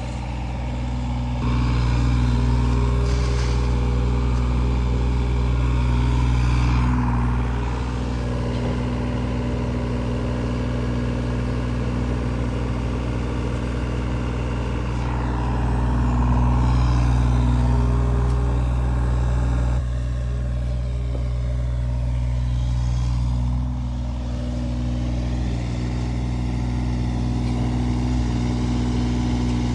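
Engine of a digging machine running steadily while digging out pond silt, its level rising and falling several times as it works under load.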